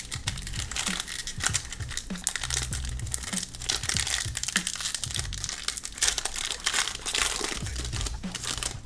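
Crinkling and tearing of a trading-card pack wrapper as it is ripped open and handled, a dense run of sharp crackles.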